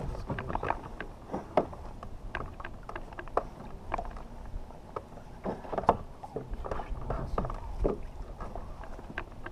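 Choppy water slapping against a fishing kayak's hull in irregular splashes, over a low steady rumble.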